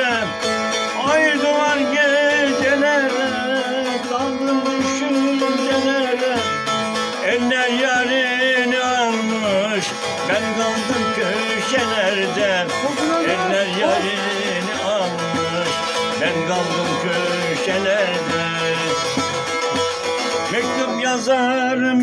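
Bağlama (long-necked Turkish saz) played solo, a Turkish folk melody of plucked notes with wavering ornaments.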